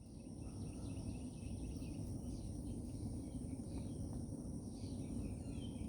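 Outdoor ambience: steady high insect drone with scattered faint bird chirps over a low steady background rumble.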